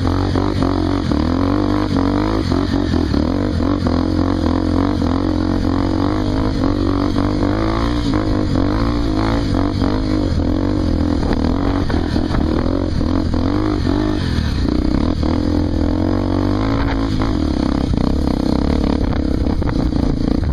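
Honda Tornado 250's single-cylinder four-stroke motorcycle engine running steadily under way, its pitch wavering up and down as the throttle changes.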